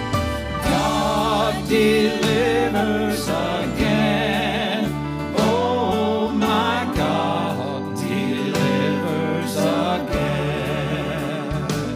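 A man singing a country-style gospel song into a microphone, his held notes wavering with vibrato, over a steady instrumental accompaniment.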